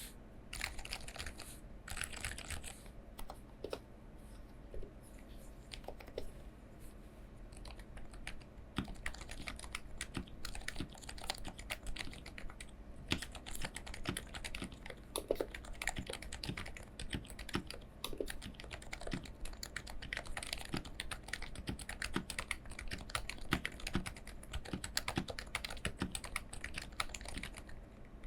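Typing on a Realforce R3S Topre keyboard with lubed Topre switches and stock keycaps: a steady run of soft, irregular key presses, sparse at first and quickening to continuous fast typing after a few seconds.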